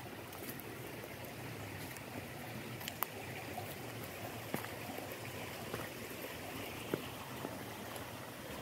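Stream water running steadily, with a few short clicks about three, four and a half and seven seconds in.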